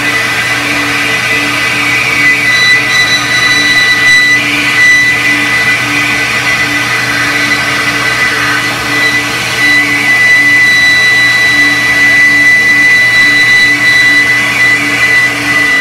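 Cylinder-head flow bench running steadily, its motor pulling air through a Harley-Davidson M8 head's port during port-velocity testing. The air rushes loudly, with a steady high whine and a low hum underneath.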